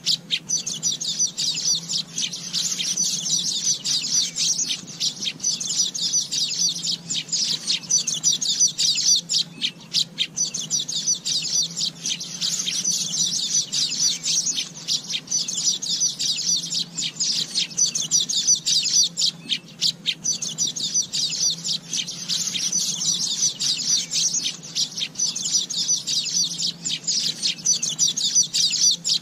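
Asian golden weaver song: a continuous rapid chatter of high chirps and trills that swells and fades every few seconds, over a faint steady low hum.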